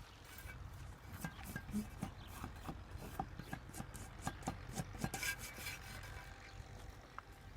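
Hand work on masonry: a string of irregular scrapes and light knocks, about a dozen over several seconds, over a steady low rumble.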